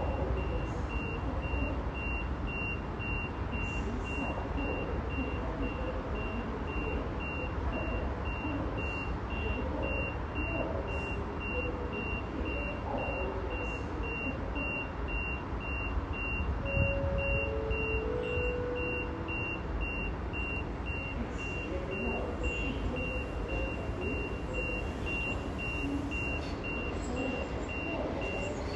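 A high electronic warning beep repeating evenly and steadily, like a reversing alarm, over a constant low rumble of railway-yard noise as an electric double-deck train approaches.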